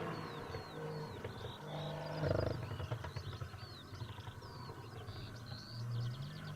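BMW M2's turbocharged straight-six, fitted with an Fi exhaust, idling with a low exhaust drone that swells and eases every second or two, while small birds chirp.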